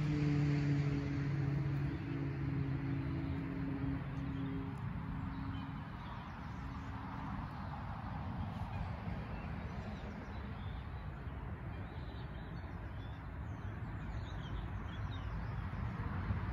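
A steady vehicle engine hum that fades away over the first five to seven seconds, over a steady background hiss, with faint bird chirps in the second half.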